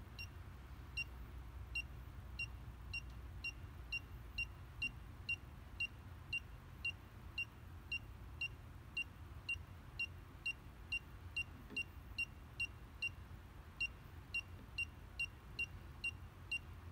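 Southwire 41210S circuit breaker finder receiver beeping as it is swept over the breakers: short high-pitched beeps, slower for the first couple of seconds, then steady at about two a second. The faster the beeping, the closer the receiver is to the breaker carrying the transmitter's signal. A low steady hum runs underneath.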